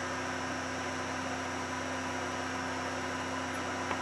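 Steady hum and hiss of small cooling fans running, with several held tones under it; a faint click just before the end.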